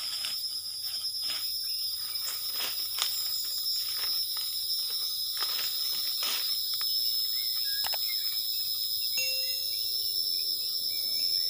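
Insects drone steadily in a thin high band. Over it come footsteps through leafy undergrowth and leaf litter, about two steps a second, fading out after about seven seconds.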